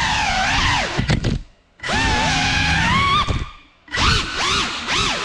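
GEPRC CineLog35 6S cinewhoop's brushless motors and ducted propellers whining, the pitch rising and falling with the throttle. The sound nearly cuts out twice, about one and a half and three and a half seconds in, as the throttle drops, then comes back in quick rising and falling swoops.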